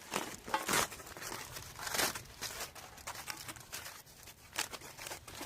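Kitchen foil crinkling and tearing in uneven bursts as it is peeled open from jacket potatoes baked in a campfire.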